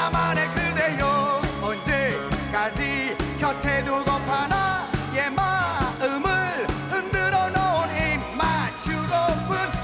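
Man singing a Korean pop song live into a microphone over a band with a steady beat, his voice wavering with vibrato on held notes.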